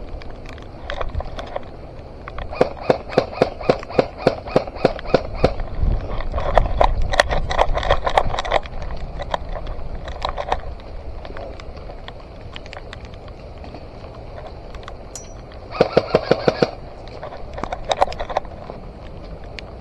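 Airsoft rifle firing: long strings of shots at roughly four a second for several seconds, scattered single shots, then a short fast burst a few seconds before the end.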